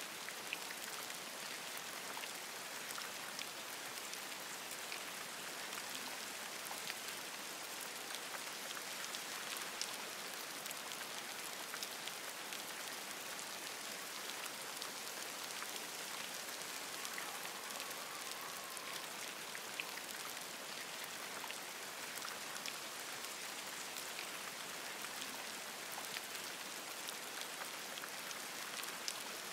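Steady rain falling on forest leaves, a gentle pattering of many individual drops at an even level. Midway through, a faint brief wavering call from a small creature sounds under the rain.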